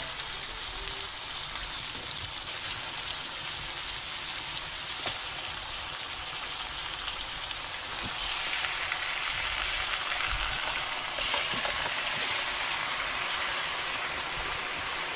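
Puffer fish heads and pieces of puffer fish flesh sizzling in a hot wok with vegetables, a steady frying hiss. The sizzle grows louder about eight seconds in as more fish goes into the pan.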